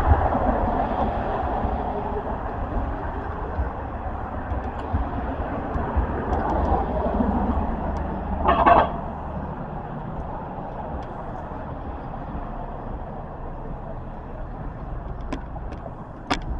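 Downtown street noise: traffic running by with a steady low rumble, and one short, louder noise about eight and a half seconds in.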